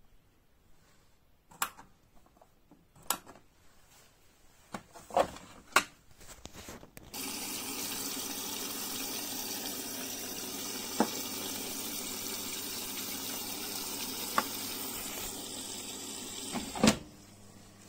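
A few sharp clicks and knocks, then about seven seconds in the 1994 Bompani washer-dryer's water inlet opens and a steady rush of water pours through the detergent drawer for about ten seconds. It stops suddenly with a knock near the end: the machine filling with water at the start of a wash.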